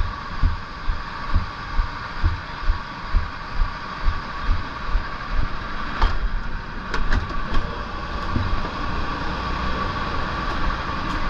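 Footsteps thudding about twice a second, heard through a helmet-mounted camera, over a steady drone of kart engines running on the track. About six seconds in, a knock and a few clicks as the driver gets into a rental kart; the drone carries on.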